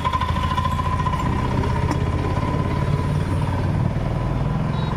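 An engine idling steadily, with a thin steady whine running above it.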